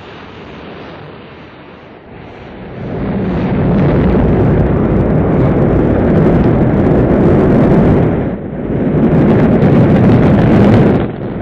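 Rocket engines firing at liftoff: a rushing rumble that grows much louder about two and a half seconds in and then stays loud, dipping briefly twice, once past eight seconds in and once near the end.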